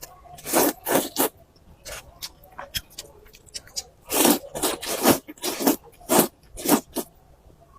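Close-miked eating of noodles: a series of short, wet slurps and chewing sounds, coming thick and fast about halfway through.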